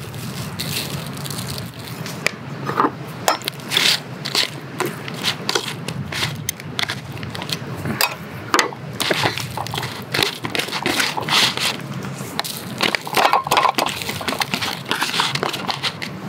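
Irregular crackling and crinkling clicks from a thin plastic food tray as raw peeled shrimp are dusted with starch powder and rubbed by hand.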